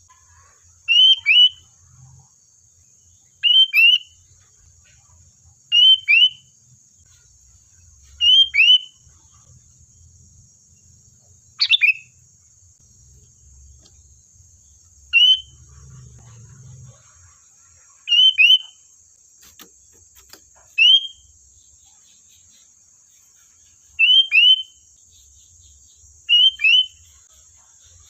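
Sooty-headed bulbul (kutilang) calling: short, sharp two-note calls repeated about every two and a half seconds, over a steady high hiss.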